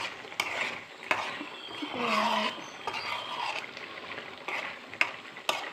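A metal spoon stirring thick mushroom curry in a steel kadai, with sharp clicks of the spoon striking the pan several times. A short voice-like sound comes about two seconds in.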